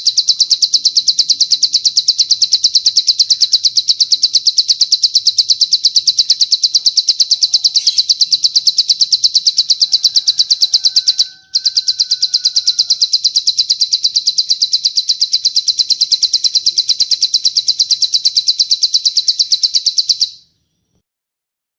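Recorded bird song: a long, fast, unbroken trill of high, evenly repeated notes in the cililin style. It breaks off briefly about halfway through, resumes, and stops abruptly near the end.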